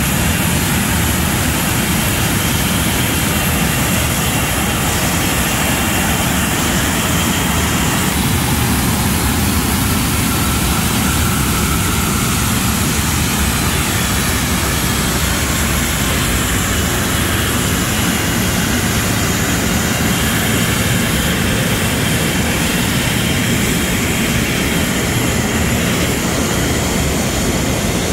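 A twin-engine business jet's turbofan engines running at idle on the ramp: a steady jet roar with a high whine on top.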